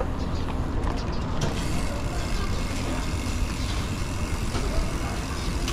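Steady road noise of a car on the move: low engine and tyre rumble without letup.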